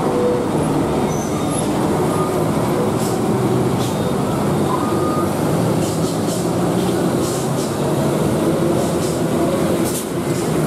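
Heavy diesel truck engines pulling slowly up a steep hairpin bend: a steady, loud drone whose pitch shifts a little, with a few short high hisses.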